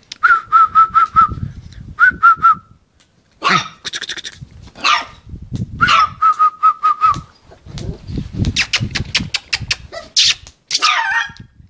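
Puppy yelping and whining, with several quick runs of short high-pitched squeaks and a falling cry near the end, over a patter of sharp clicks and scuffs.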